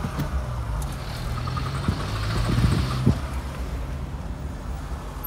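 Fiat Panda 900ie's 903 cc four-cylinder engine running as the car is driven slowly, heard from inside the cabin, with a few sharp knocks between about two and three seconds in.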